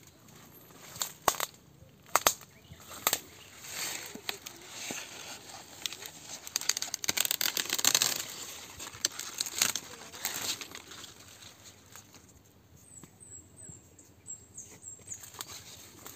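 Dry corn leaves and husks rustling as an ear of corn is gripped and pulled from its stalk, the rustling loudest about halfway through. Two sharp snaps come a second or two in, and faint birds chirp near the end.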